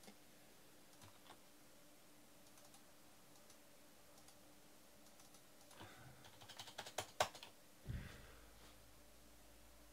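Computer keyboard and mouse clicking, mostly faint, with a quick run of clicks about six to seven seconds in, followed by a single low thump.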